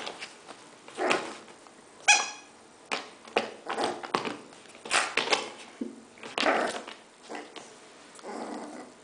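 Yorkshire terrier puppy playing with a rubber chicken squeaky toy: a string of short, irregular growls, yips and wheezy squeaks as it noses and paws the toy, with one sharp high squeak about two seconds in.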